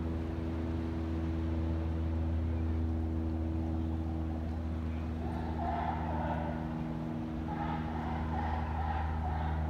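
A steady low engine hum. About halfway through, a higher, broken sound joins it.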